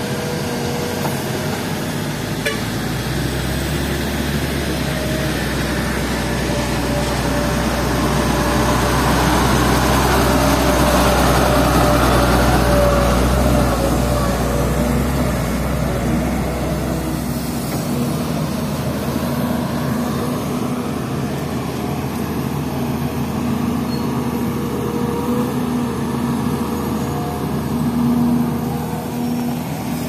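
A concrete mixer truck drives past, its diesel rumble building, peaking and fading over about fifteen seconds. A crawler excavator's diesel engine runs steadily throughout.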